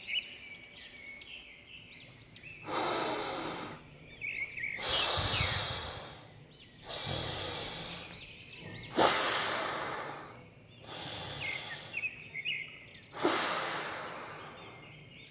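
A man doing alternate-nostril breathing, one nostril held shut with his fingers, forcing six loud breaths in and out through his nose. Each breath lasts about a second and a half, with short pauses between them. Birds chirp through the first couple of seconds and faintly between the breaths.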